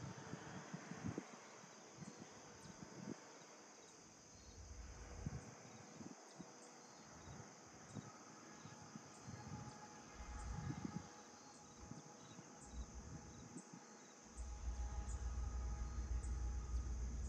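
Crickets and other insects trilling steadily and high-pitched in a rural field at dawn. A low rumble comes and goes underneath and grows louder and steadier about fourteen seconds in.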